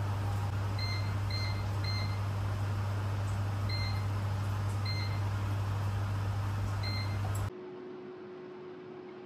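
Nutricook air fryer's control panel beeping six short times as its buttons are pressed to set it, over a steady low hum. The hum cuts off suddenly about seven and a half seconds in, leaving a quieter room with a faint steady tone.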